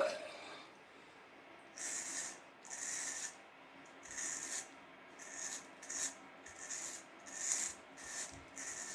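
Wilkinson Pall Mall single-edge safety razor scraping through facial stubble in a series of short strokes, starting about two seconds in. The razor is on a medium, less aggressive blade setting.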